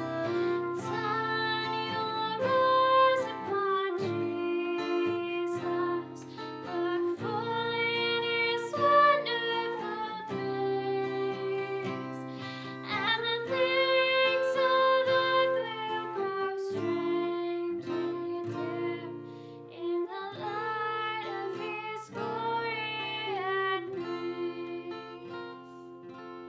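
Song played on acoustic guitar, a steady run of plucked and strummed chords, with the last chord ringing out and fading near the end.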